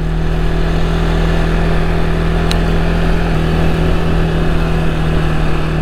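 CFMoto CForce 450 ATV's single-cylinder engine running steadily at an even pitch, with a deep exhaust note.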